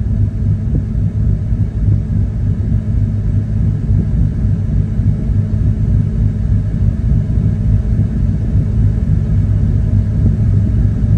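Steady low rumble inside a pickup truck's cab with the truck running, with no changes or separate events.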